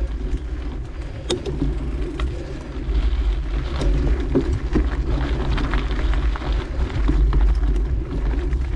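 Mountain bike riding on a dirt trail: a steady low rumble from wind buffeting the microphone and the tyres rolling, with scattered clicks and rattles from the bike and the trail surface.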